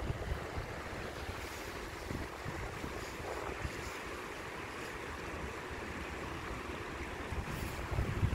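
Floodwater rushing steadily through a street, with wind buffeting the microphone.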